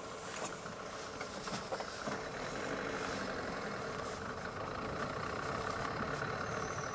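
Car engine and tyre noise heard from inside a moving car, steady and growing a little louder about halfway through.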